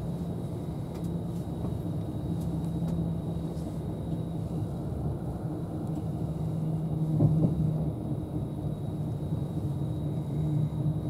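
Steady running rumble and hum of an Avanti West Coast Class 390 Pendolino electric train, heard inside the carriage, with a brief thump about seven seconds in.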